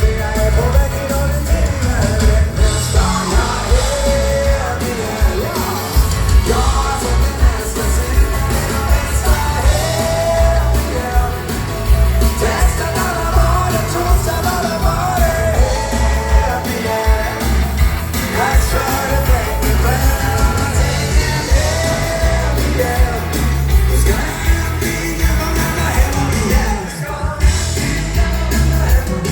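Dance band music with a singer and a steady beat, in a rock'n'roll style.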